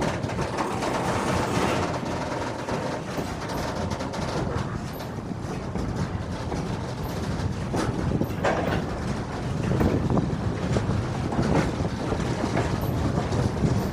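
Freight train of log-loaded timber wagons rolling past close by: a steady rumble of steel wheels on the rails, with repeated clicks and knocks as the wagons pass over the track.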